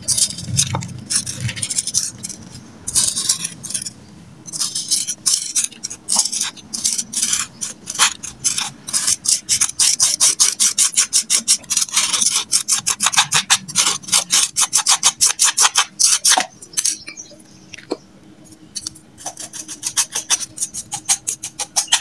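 Dry biscuits being crushed and ground by hand, a rapid rhythmic rasping and scraping of about four or five strokes a second, with a short lull a little before the end.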